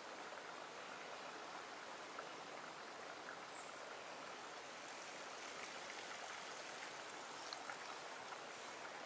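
A stream running over bedrock: a steady rush of flowing water, with a few faint small ticks.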